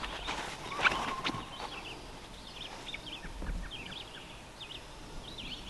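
Small birds chirping in short, repeated phrases throughout, with a brief sharp sound about a second in from a disc golf throw, the loudest moment.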